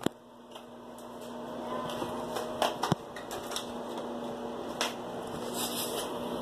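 Handling noise from a phone being moved about: scattered short clicks and rubs over a faint steady hum.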